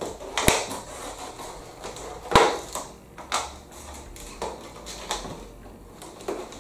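Plastic-and-cardboard product packaging being handled and pulled at, crinkling, with a handful of sharp snaps and knocks. The loudest snap comes a little over two seconds in.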